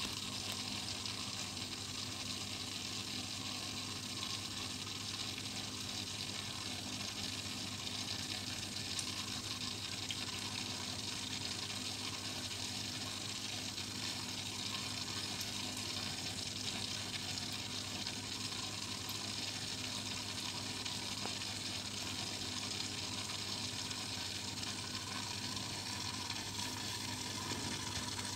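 Aquarium filter running: a steady rush and trickle of moving water with a low, even hum underneath.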